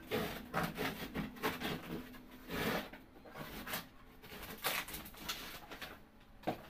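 Cardboard shipping box being pulled and peeled away from a plastic chest of drawers: irregular rustling, scraping and flapping of cardboard against plastic, with a sharp knock near the end.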